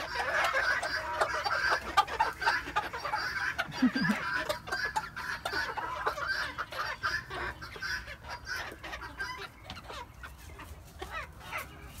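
A small flock of chickens clucking continuously while pecking at a plastic tub of salad greens, with many sharp clicks of beaks striking the food and tub. The clucking thins out and gets quieter in the second half.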